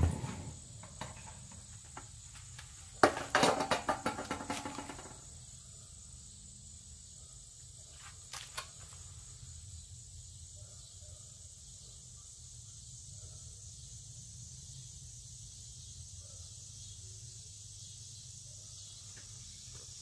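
Metal clanking and scraping for about two seconds, starting three seconds in, as the lid comes off a small metal-casting furnace and steel tongs take hold of the crucible. A couple of lighter clicks follow, then only a faint steady low hum.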